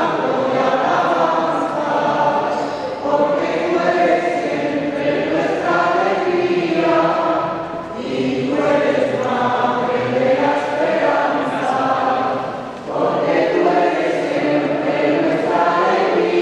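A choir of voices singing a hymn together, in long sung phrases with short pauses for breath about eight seconds in and again near thirteen seconds.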